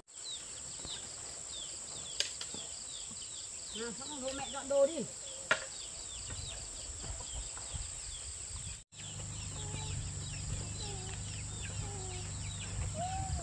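Outdoor country ambience: a steady high insect drone with many quick, repeated bird cheeps. A short pitched call or voice about four to five seconds in is the loudest thing, with a couple of sharp clicks around it. After a cut about nine seconds in, a low steady hum joins.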